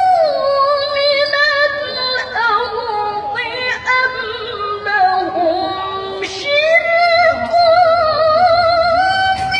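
A woman reciting the Quran in the melodic tilawah style, holding long, ornamented notes with vibrato. The line sinks lower near the middle, then a new, higher phrase begins about two-thirds of the way in.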